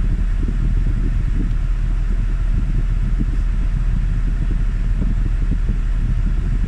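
Steady low rumble of a Toyota Tarago van idling with its air conditioning running, heard from inside the cabin.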